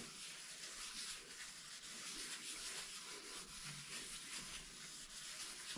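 Faint rubbing of a cloth wiping oil over a cast-iron stovetop griddle in repeated strokes, seasoning the freshly cleaned surface.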